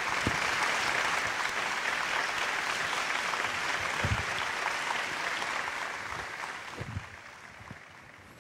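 Audience applause after a magic trick's reveal: steady clapping that fades away over the last two seconds or so.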